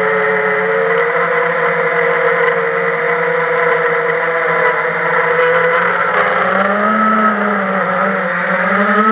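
FPV quadcopter's motors and propellers whining steadily in flight, heard close up from the camera on board. The pitch rises and falls briefly about seven seconds in and again at the very end as the throttle changes.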